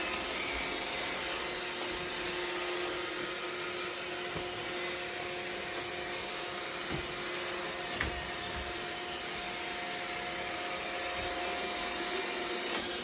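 iRobot robot vacuum running: a steady hum of a few tones over an even hiss, with two short knocks about seven and eight seconds in.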